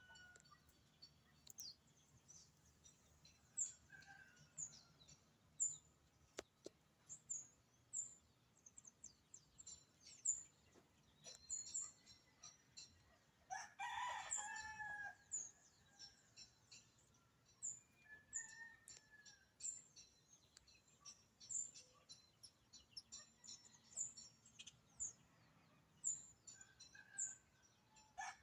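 Small birds chirping throughout in short, high notes. A rooster crows once, louder than the chirps, about halfway through.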